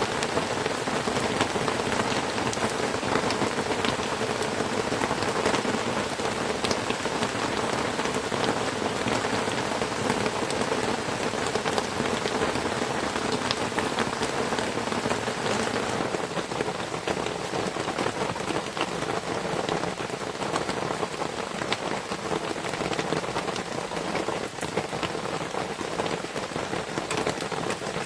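Heavy rain falling steadily on a small hut: a dense hiss with many separate drops ticking through it, easing slightly about halfway through.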